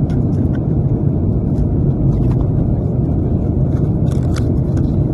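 Steady low rumble of an airliner cabin in flight: engine and airflow noise. A few light crinkles of a snack packet being handled come about four seconds in.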